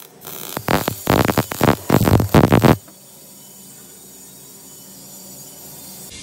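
Electric welding arc crackling and sputtering in irregular bursts, stopping suddenly nearly three seconds in and leaving a steady low hum.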